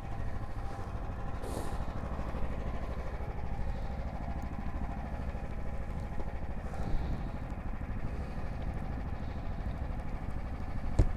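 Snowmobile engine idling steadily, with a single sharp click near the end.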